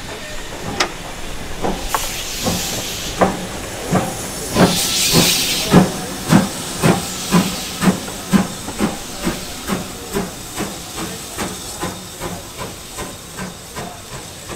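Steam locomotive pulling away, its exhaust beats quickening from about one a second to about two a second and slowly fading. A loud burst of steam hiss comes about five seconds in.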